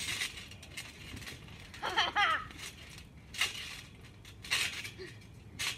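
Trampoline springs clinking and creaking with each bounce, about five times a second or so apart. A brief high-pitched cry about two seconds in.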